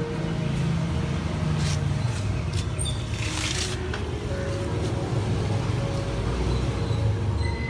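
Steady low rumble like road traffic, with a brief rustle about three seconds in.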